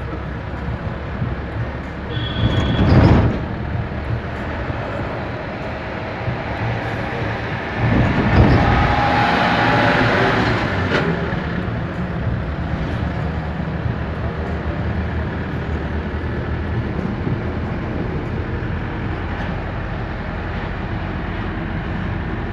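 Heavy truck's engine running steadily under way, heard from inside the cab, with two louder rushes of noise, briefly about three seconds in and again for a few seconds from about eight seconds in.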